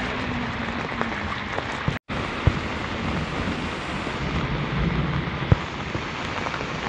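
Rain falling and muddy runoff water flowing: a steady rushing hiss, cut off for an instant about two seconds in, with a couple of sharp taps.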